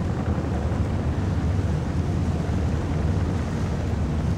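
Motorboat engine running steadily under way, a continuous low rumble, with wind buffeting the microphone.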